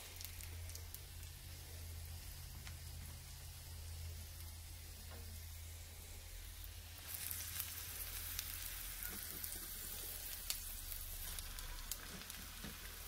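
Oyster mushrooms sizzling in butter in a cast-iron skillet: a steady frying hiss with scattered small pops. It grows louder about seven seconds in, as more mushrooms go into the pan.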